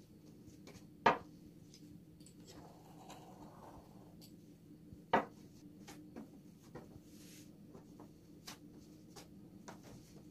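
Two sharp knocks of a long wooden rolling pin on a wooden table, about four seconds apart, among soft rustling and light taps of hands handling thin floured dough sheets, over a faint steady hum.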